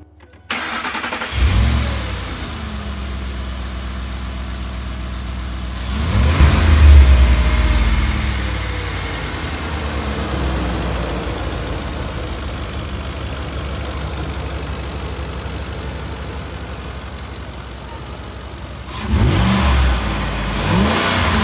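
Ford 5.4L three-valve V8 starting up about a second and a half in, then idling steadily, with a rev about six seconds in and quick throttle blips near the end. This is the first start after a new timing chain set and VVT cam phasers, to check for timing-chain rattle.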